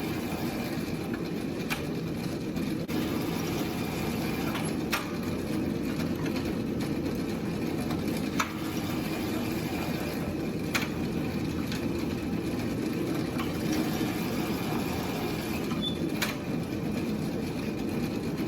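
Steady running noise of a roller mill and forge working leaf-spring steel, with a few sharp clicks or knocks scattered through it.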